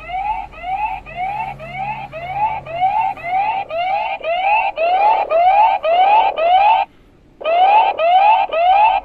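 Xiaomi Mi Smart Home gateway's alarm siren sounding: a repeating rising whoop, about two a second, growing louder about four seconds in, breaking off briefly near the end and then starting again. It is the intruder alarm set off by a motion sensor picking up movement while the system is armed.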